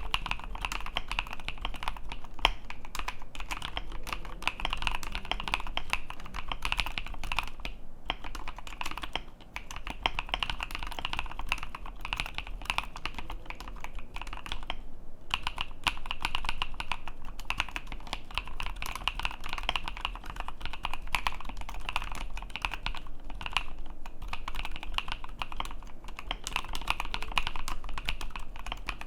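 Continuous fast typing on a mechanical keyboard with lubed, filmed Novelkey Cream linear switches on a polycarbonate plate and ASA-profile keycaps, a dense run of deep keystroke clacks. The typing pauses briefly a few times, around eight, nine and fifteen seconds in.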